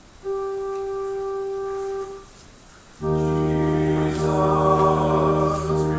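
Church organ holds a single steady note for about two seconds, then after a brief pause plays a full sustained chord with deep bass. Voices join in singing about a second after the chord.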